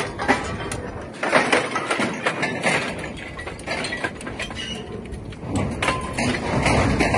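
Scrap metal clanking and rattling, with many sharp metallic knocks, over the low hum of heavy machinery.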